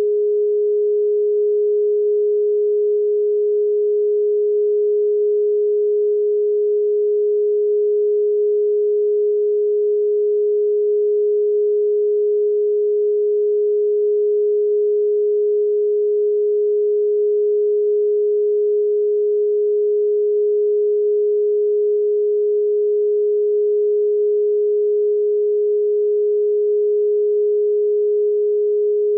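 A steady pure sine tone a little above 400 Hz, held unchanged at one pitch and level: a solfeggio-style meditation tone.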